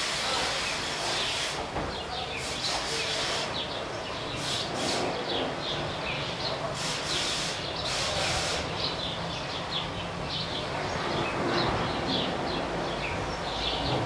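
House sparrows chirping: many short, high chirps scattered throughout, over a steady low background rumble.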